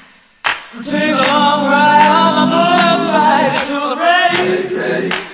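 Background music: voices singing a cappella in harmony, holding long notes, after a brief pause at the start.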